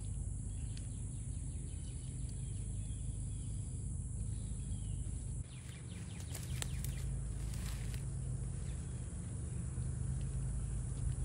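Outdoor ambience: a steady high insect drone over a low rumble, with a stretch of crackling and rustling in the middle.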